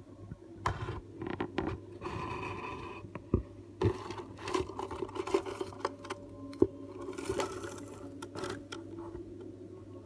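Irregular scratching, scraping and sharp clicks inside a wooden budgerigar nest box, with short rustling stretches between them.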